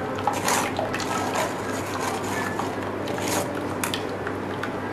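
Blended falsa juice trickling through a metal mesh strainer into a glass bowl, while a metal spoon presses and stirs the wet pulp and seeds in the strainer, with a few short scrapes of spoon on mesh.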